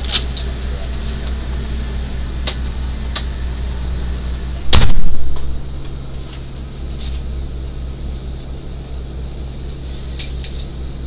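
Steady low hum of the ambulance running, heard inside its patient compartment, with a few light clicks and one loud thump about five seconds in.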